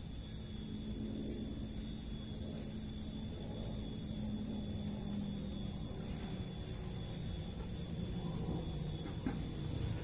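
Steady low background rumble with a faint hum that fades out about six seconds in; no distinct event.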